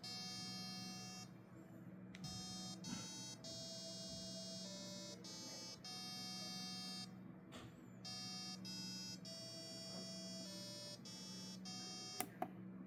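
Small 8-ohm speaker driven by an Arduino Uno's tone() function, playing a sequence of electronic beep notes that change pitch every half second to a second, over a steady low hum. Two sharp clicks come near the end.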